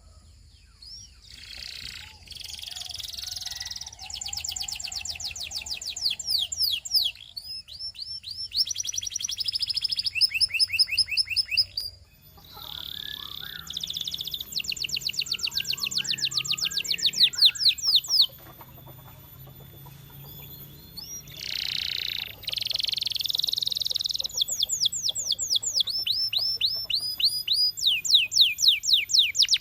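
Russian canary singing: long phrases of fast, evenly repeated trills and rolls, broken by short pauses between phrases.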